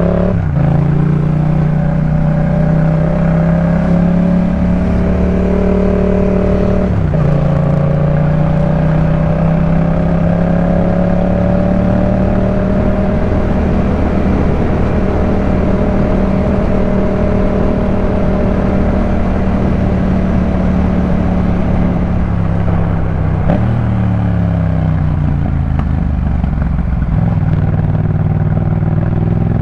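Yamaha MT-07's 689 cc parallel-twin engine through a Jeskap K4 full exhaust, under way. It pulls up through the revs at the start, shifts up about seven seconds in and runs at a steady speed, then backs off a little after twenty seconds before picking up again near the end.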